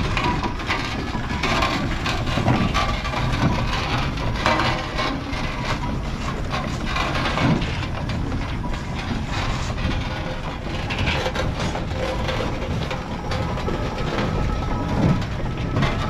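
Fowler BB steam ploughing engine running, a steady mechanical clatter with irregular knocks from its motion work.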